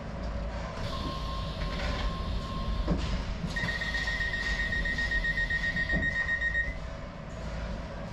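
Docklands Light Railway train standing at a station with its low hum, then the door warning sounding a rapid, high beeping, about four beeps a second, for about three seconds. A clunk comes just before the beeping and another near its end.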